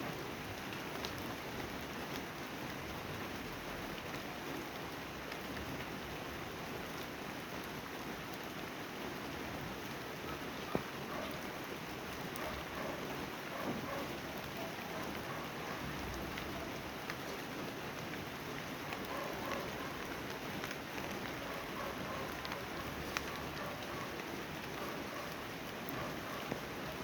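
Steady rain falling, an even hiss with a few sharper single drop hits about eleven, fourteen, twenty-three and twenty-six seconds in.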